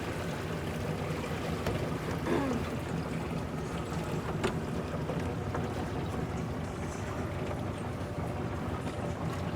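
Boat motor idling steadily as the boat waits to come in to a dock, with a single sharp click about four and a half seconds in.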